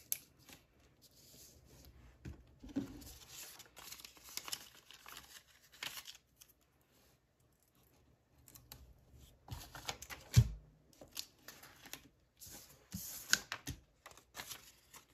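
Rustling and clicking of cash envelopes and binder pages being handled and sorted, with one louder thump about ten seconds in.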